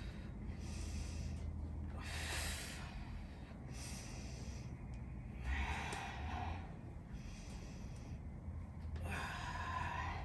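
A woman breathing hard through her nose and mouth during weighted glute bridges: a steady run of breaths, one every one to two seconds in time with the reps, over a low steady hum.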